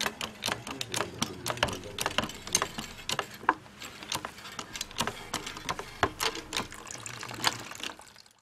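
Grated coconut in a net bag being squeezed under a hydraulic bottle-jack press, coconut milk trickling and dripping out with many irregular sharp clicks. It fades out near the end.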